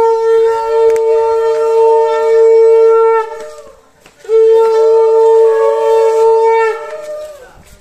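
Conch shell (shankha) blown in two long, steady blasts, each about three seconds, with a pause of about a second between them. It is sounded as part of a Bengali wedding's morning ritual.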